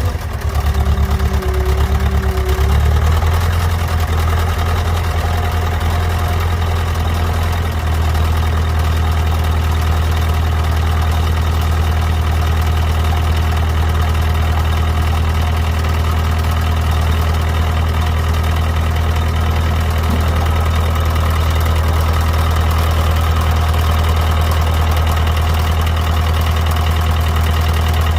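Fordson Power Major tractor engine just after a start from months of standing. It runs unevenly for the first few seconds, then settles into a steady, clean idle.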